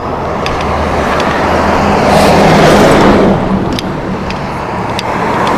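A road vehicle passing by, its tyre and engine noise swelling to a peak about two and a half seconds in and then fading.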